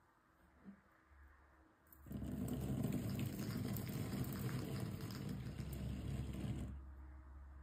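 Water beads (orbeez) pouring from a glass into a plastic tray of beads, a dense rush of many small wet patters. It starts suddenly about two seconds in and trails off near the end.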